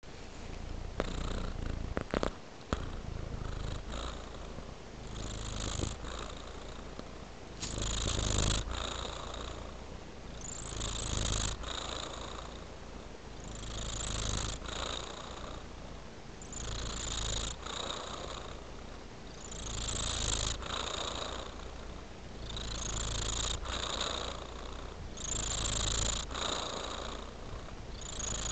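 Tabby-and-white domestic cat purring steadily, the purr swelling and fading about every three seconds. A few sharp clicks about two seconds in.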